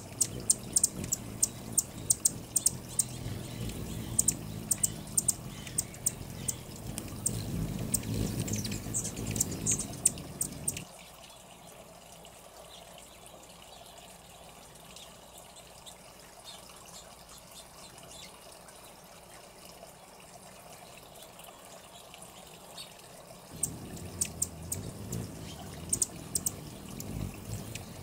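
Small solar fountain trickling and splashing as a thin stream falls onto a birdbath, with many rapid, sharp high ticks over it. It drops to a much quieter hush about 11 seconds in, and the trickle and ticks return near the end.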